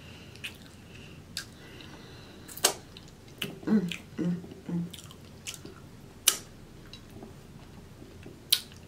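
Close-miked wet eating sounds: a woman chewing cheese-covered nachos and licking her fingers, with sharp lip smacks scattered throughout. About halfway through come three short hummed 'mm' sounds.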